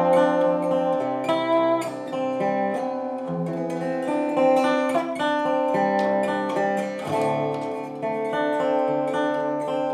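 Background music: plucked acoustic guitar playing a steady run of notes.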